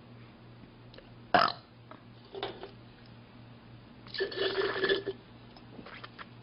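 A young woman burping three times: a short, sharp, loud burp about a second in, a small one after it, then a longer burp lasting about a second.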